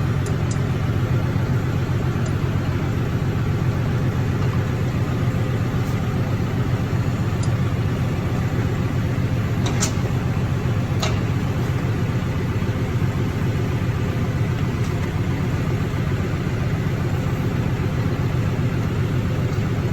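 Farm tractor engine running steadily at a constant speed, with two sharp clicks about halfway through.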